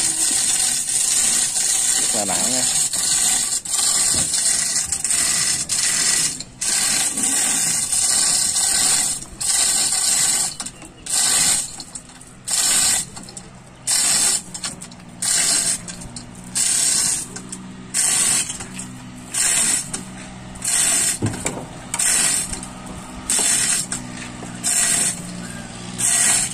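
Manual chain hoist being hauled by its hand chain: chain rattling and the pawl ratcheting in regular strokes about once a second, lifting a heavy load.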